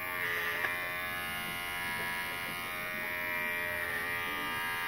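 oneisall cordless rechargeable pet clipper running with a steady electric buzz as it trims the hair around a dog's eyes. There is a small tick about half a second in.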